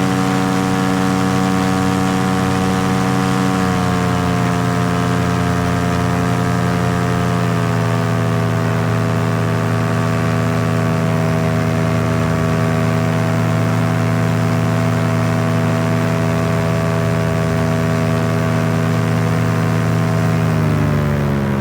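Paramotor engine and propeller running steadily in flight. The pitch steps down slightly twice in the first several seconds, then falls further near the end as the throttle is eased back.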